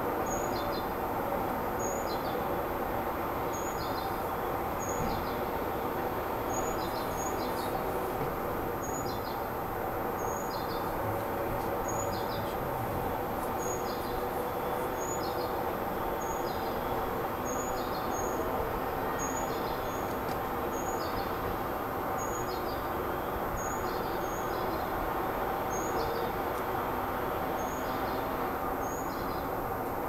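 A songbird calling a short, high two-part chirp over and over, about once a second, over steady background noise.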